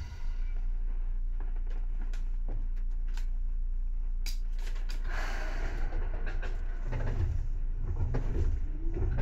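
Seibu 2000 series electric train standing still: a steady low hum from the under-floor equipment with occasional sharp clicks. Near the end a rising whine begins as the traction motors start the train moving.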